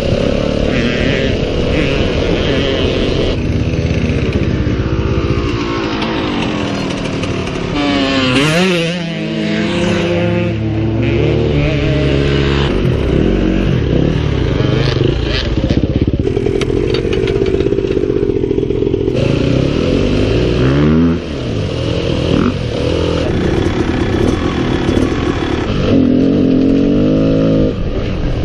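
Yamaha WR250F four-stroke single-cylinder trail bike engine, heard close from the rider's seat, revving up and down over and over as it is ridden along rough dirt tracks. The sound changes abruptly a few times.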